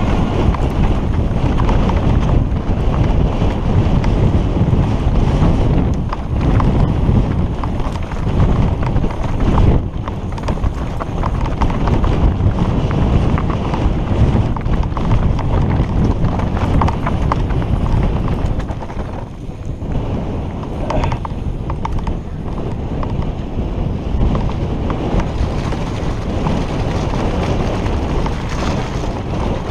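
Wind buffeting a helmet-mounted camera's microphone, over the steady rattle and clatter of a mountain bike descending fast over rocks and loose stones. The noise eases briefly about two-thirds of the way through.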